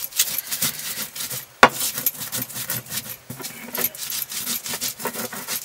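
A stone roller rubbed back and forth over a flat Nepali grinding stone (silauto and lohoro), crushing spices in repeated gritty strokes. There is one sharp knock of stone on stone about a second and a half in.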